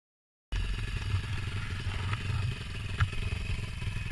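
Pit bike's small single-cylinder engine idling, with a few sharp clicks. It cuts in about half a second in.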